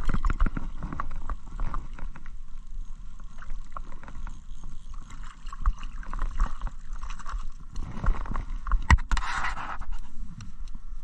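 Close handling noise as a hooked trout is reeled up through a hole in the ice and landed: a dense run of small clicks, scrapes and rustles. There is a sharp knock about nine seconds in, then a short scraping rush.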